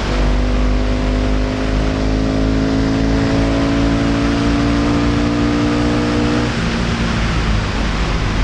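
Ducati engine of a classic racing sidecar outfit, heard from on board at full throttle: the engine note climbs steadily in pitch for about six and a half seconds, then breaks off and changes, with a steady rush of wind and road noise underneath.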